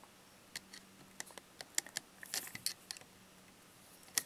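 Screwdriver turning the cylinder-pin retaining screw back into the frame of a single-action .22 revolver: faint, irregular small metal clicks and ticks, with a sharper click near the end.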